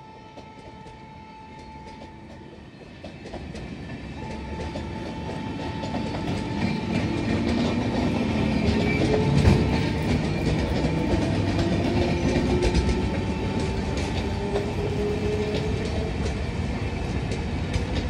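Passenger coaches of an express train rolling slowly past, with wheels clicking over the rail joints. The sound grows louder from about three seconds in and then holds steady.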